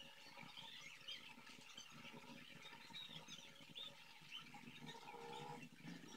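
Near silence: faint room tone with scattered soft high chirps.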